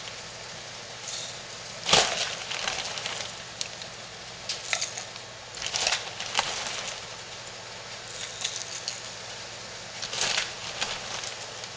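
Emulsifying wax pellets poured from a scoop into a glass measuring cup on a kitchen scale: several short pours of pellets rattling into the glass, the loudest about two seconds in.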